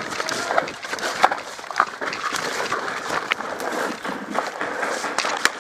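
A person on the move on foot over rough ground: a steady rustle of footsteps and clothing, broken by a few sharp isolated clicks or snaps.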